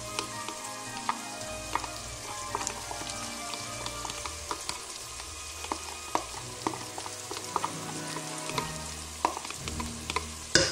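Chopped vegetables frying in oil in a stainless pressure-cooker pot, with a steady sizzle and frequent small pops and crackles. A brief, louder clatter comes near the end.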